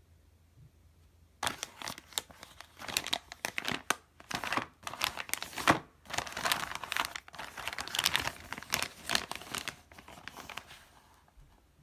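Anti-static shielding bag around a PCI modem card crinkling as it is handled and pulled out of its cardboard box. The irregular crackly rustles start about a second and a half in and die down shortly before the end.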